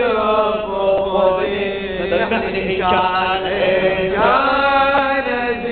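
A man chanting an Arabic latmiya, a Shia mourning elegy, in long drawn-out notes that rise and fall.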